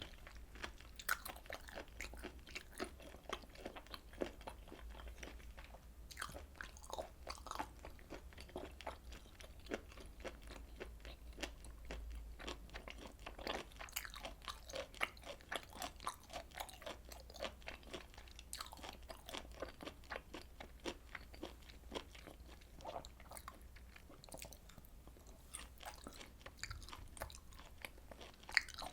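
Close-miked chewing of grilled beef large intestine and beef and pork tripe (daechang and makchang), a steady run of irregular small clicks and smacks from the mouth, over a low steady hum.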